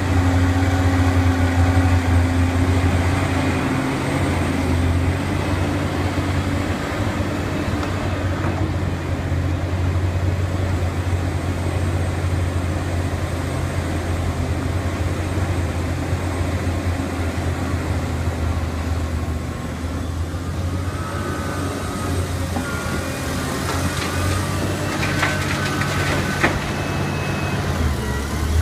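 Large Liebherr R 984 hydraulic excavator working: its diesel engine drones steadily under load while it digs and swings a bucket of earth. Brief higher-pitched squeals and clicks come near the end.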